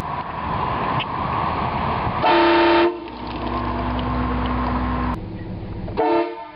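Train horn sounding a chord of several tones in two short blasts, the louder and longer one about two seconds in and a briefer one near the end, over the steady noise of a running vehicle.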